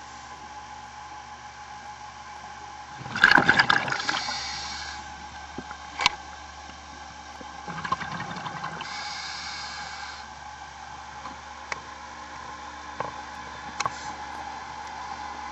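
Underwater sound of a scuba diver breathing through a regulator: two bursts of exhaled bubbles, each followed by a hiss, over a steady machinery hum. A few sharp knocks sound in between.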